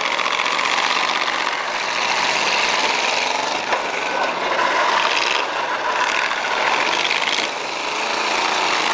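Engines of several demolition derby cars running together in a loud, steady, rasping din.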